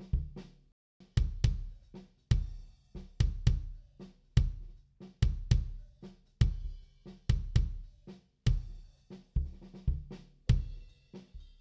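Recorded drum kit track playing back: kick and snare hits in a steady groove, with cymbals ringing, the kick coming from a replacement kick sample.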